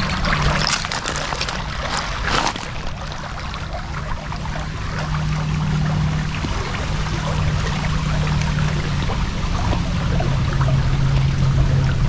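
Creek water running and trickling over a pebble bed where two forks of the creek meet, a steady rush.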